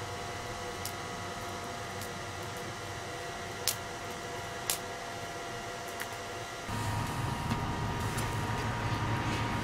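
Steady mechanical hum with faint steady tones. Two sharp metallic clicks come about 3.5 and 4.5 seconds in while hot mild-steel bar is bent around the pins of a bending jig in a vise. About 7 seconds in the hum switches abruptly to a louder, deeper one.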